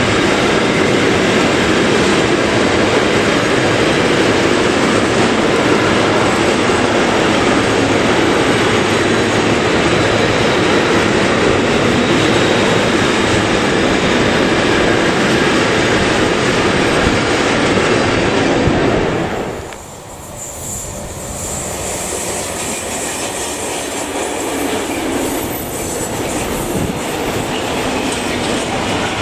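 A long container freight train rolling past close by, with a steady rumble and clatter of wheels on the rails. About 19 seconds in, the sound drops abruptly to a freight train of flat and open wagons passing further off, growing louder toward the end.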